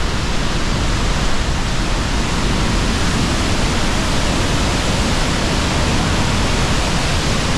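Pailón del Diablo waterfall: loud, steady rushing of heavy falling water, an even wash of sound with no breaks.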